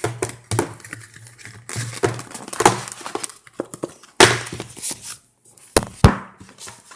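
Cardboard packaging scraping and rubbing in irregular bursts, with a few sharp knocks, as a tightly packed box is worked open and its contents slid out; the loudest knocks fall a little before 3 s, about 4 s and about 6 s in.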